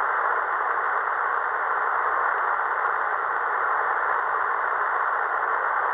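Tecsun PL-365 shortwave receiver tuned to the 20-metre amateur band, putting out steady static hiss through its single-sideband filter while the distant station's voice pauses.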